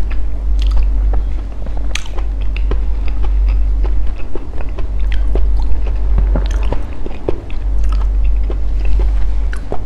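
Close-up chewing of a mouthful of durian sticky rice, with many short mouth clicks scattered through, over a steady low hum.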